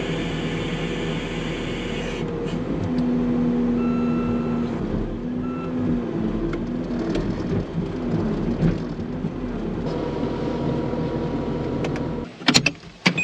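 Farm loader's engine running, its pitch rising and falling with the throttle. Near the end the engine sound drops away and a few sharp clacks follow.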